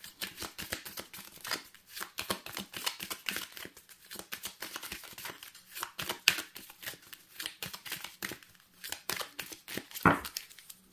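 Hand-shuffling a deck of oracle cards: a dense run of quick, soft clicks and riffles, with one louder tap near the end.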